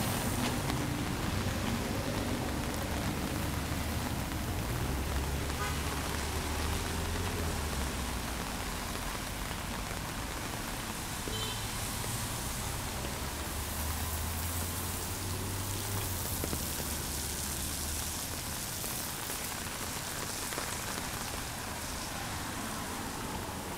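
Steady rain falling on a city street, an even hiss. A low rumble swells and fades twice, from passing traffic.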